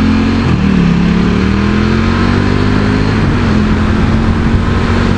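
KTM RC8 V-twin engine pulling hard through the gears. Its pitch drops at an upshift about half a second in, climbs steadily, then steps down again at the next upshift about three and a half seconds in. Wind rush runs under it.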